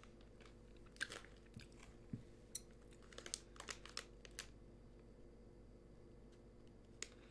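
Faint, scattered crinkles and clicks of a plastic snack bag being handled and opened, with a quick cluster of them around three to four seconds in.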